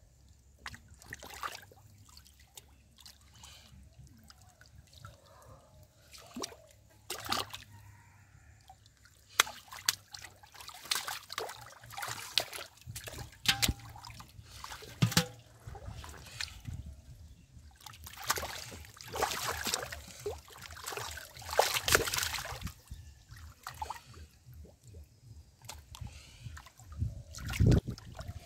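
Shallow muddy water splashing and sloshing in irregular bursts as hands grope through it and caught fish thrash. The splashes come thickest in the middle, with one sharp splash near the end.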